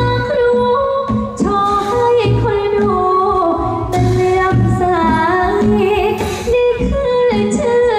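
A woman singing a Thai song over backing music with a steady beat, amplified through the stage sound system.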